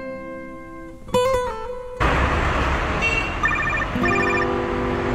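Guitar notes of the score ring and fade. About two seconds in, traffic noise comes in. From about three and a half seconds in, a mobile phone rings with a trilling ringtone in short repeated bursts.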